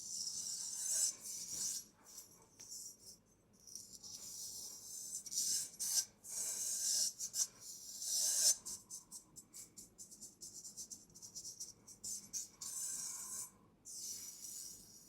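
Traditional straight razor working on skin: crisp rasping scrapes in the first half, then a quick run of light ticks and taps from the blade.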